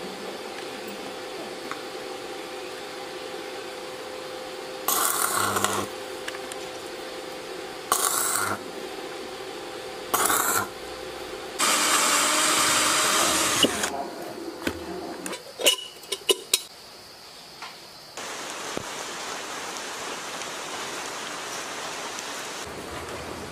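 Three short bursts of electric arc welding, each under a second, then an electric drill boring through thin sheet metal for about two seconds, followed by a few sharp metal clicks. Near the end there is a steady even hiss.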